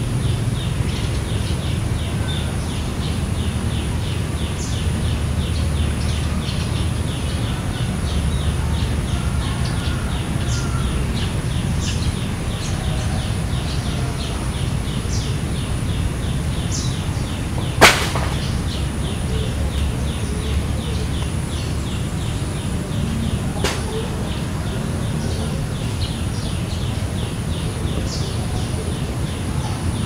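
Outdoor ambience: a steady low rumble under a faint high hiss and a run of soft, rapid, high ticks, about four a second. One sharp click comes a little past the middle, and a weaker one several seconds later.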